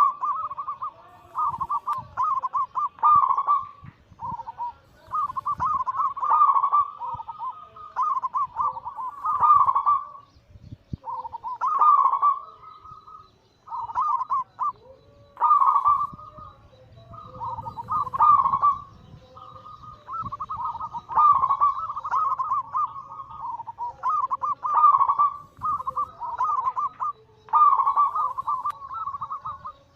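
Zebra doves (perkutut) singing their cooing anggungan song, phrase after phrase with short pauses between.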